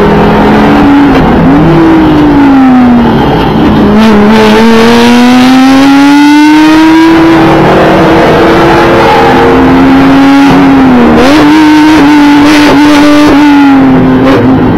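2012 Audi TT RS's turbocharged five-cylinder engine working hard at racing speed: the pitch falls for about two seconds as it slows, then climbs steadily for several seconds under full throttle, drops sharply around two-thirds of the way through as if on a gear change, and holds with a run of rattles and knocks.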